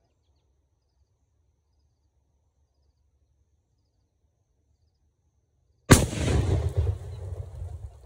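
Near silence, then about six seconds in a single sudden, very loud explosive blast, with a low rumble that fades over about two seconds.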